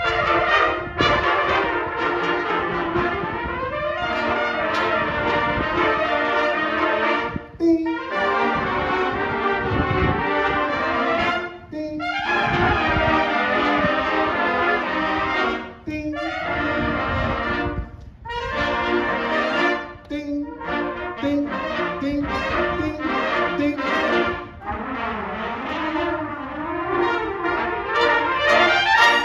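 Trumpet ensemble playing a lively concert piece in phrases broken by brief pauses, ending on a loud final chord.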